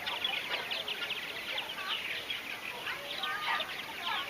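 A purple martin colony calling: many birds' short chirps and gliding calls overlapping in a continuous chorus.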